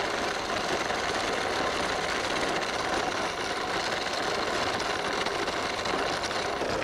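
Battery-powered toy remote-control truck running steadily over dirt and small stones, its electric motor and gearbox whirring.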